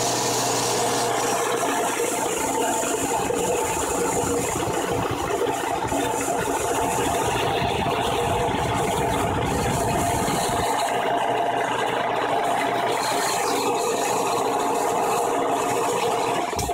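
Vintage Sears Craftsman 2 HP air compressor running: the electric motor driving the single-cylinder, finned, air-cooled pump with a steady mechanical running noise. It is switched off right at the end.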